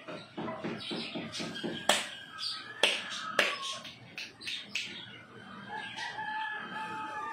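A rooster crowing, one long held call near the end, with three sharp clicks in the first half.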